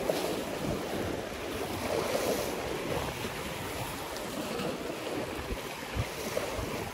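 Small sea waves washing and breaking over shallow shoreline boulders, with wind buffeting the microphone.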